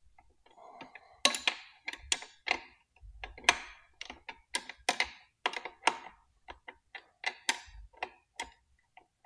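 Ratchet wrench clicking in a quick, uneven string of sharp ticks, about two to three a second, starting about a second in, as an 18 mm nut is loosened.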